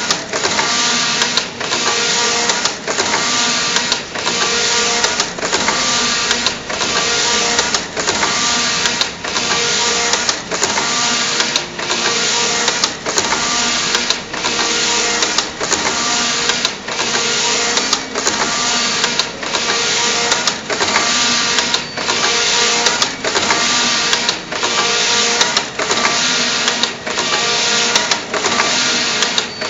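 FENGFAN computerized flat knitting machine running, its carriage traversing the needle bed with a steady mechanical clatter that dips briefly at each reversal, about once a second.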